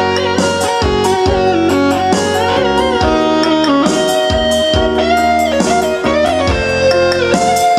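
Guitar music: a plucked electric guitar plays a melody of held notes with bends over a steady bass line.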